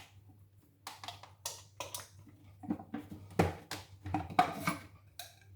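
Light clicks and knocks of kitchen things being handled, about ten of them spread over a few seconds, as a vegetable juicer is readied.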